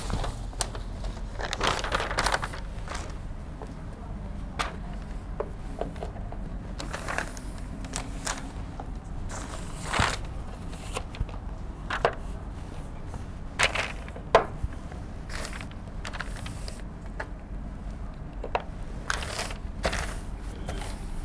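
A large paper chart being handled and pressed flat against a whiteboard: scattered rustling and scraping of paper with a few sharp taps and knocks, over a low steady hum.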